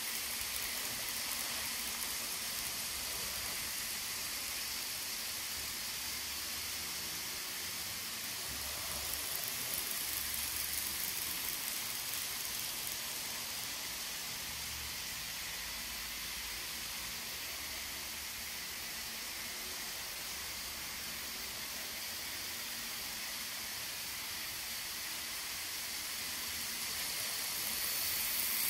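N scale model trains running on the layout's track, a steady hiss that grows louder near the end as a locomotive passes close.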